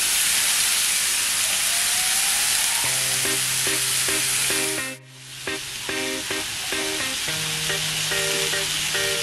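Marinated chicken pieces sizzling loudly on a hot grill pan, with short repeated notes of background music coming in about three seconds in. Everything drops out briefly near the middle, then the sizzle and music resume.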